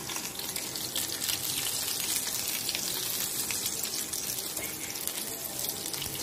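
Battered chicken lollipop deep-frying in a wok of hot oil: a steady crackling sizzle of bubbling oil.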